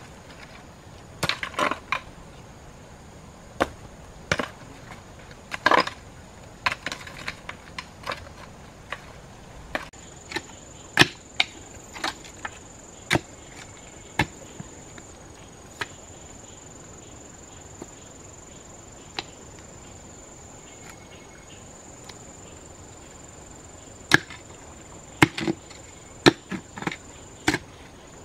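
Irregular strikes and scrapes of a hand digging tool into hard, stony soil, bunched near the start and the end with sparser hits in between. A steady high insect drone comes in about a third of the way through.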